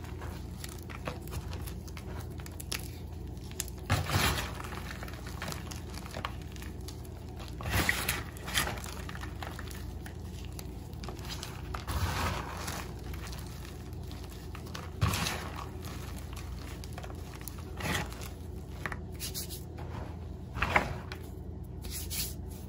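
Gym chalk being crushed and kneaded by hand in a plastic tub: soft, dry crumbling and squeaky powder rubbing, with louder crunches every few seconds as lumps break. A steady low hum runs underneath.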